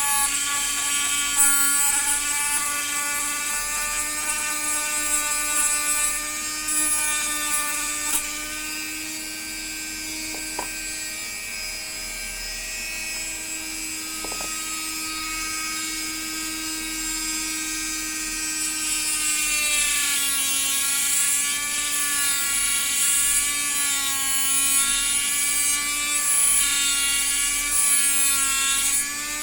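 Small high-speed electric motor running steadily, its pitch wavering slightly, with a couple of faint clicks about halfway through.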